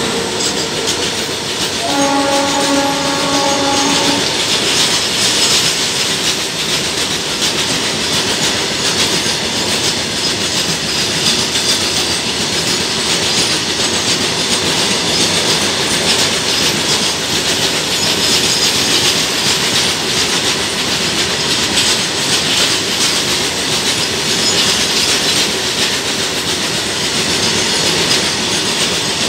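A long freight train of loaded open wagons rolls past at speed, a steady rumble and clatter of wheels on the rails. About two seconds in, a train horn sounds once for about two seconds.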